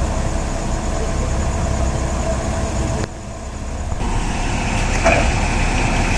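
Diesel forklift engines running steadily under load. The sound dips briefly about three seconds in, then comes back with a steady high whine added.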